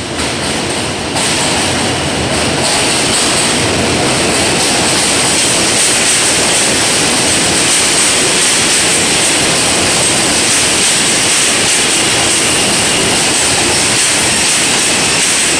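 R160A subway train pulling into an elevated station and passing close by: a loud, steady rumble and clatter of steel wheels on rail, growing just after the start and again about a second in as the cars reach the platform, with a thin high whine over the top.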